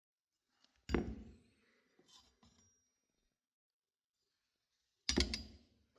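Light knocks and clinks from the removed clutch plates being handled: one sharp knock about a second in that dies away, a few faint clicks, and a short clatter near the end, with quiet between.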